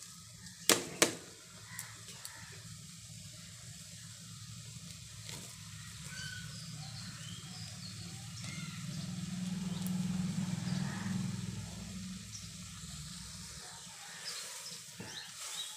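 Water boiling in a metal pan on a gas burner: a low steady rumble that swells in the middle, with small scattered bubbling pops. Two sharp knocks about a second in as rose petals are tipped in from a plastic colander, and light clicks of a spoon stirring near the end.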